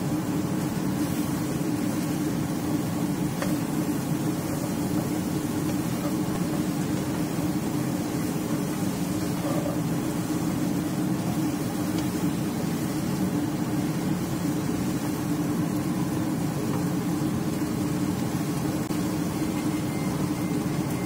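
Vegetables stir-frying in a wok over a steady low drone from the stove, which runs on without a break.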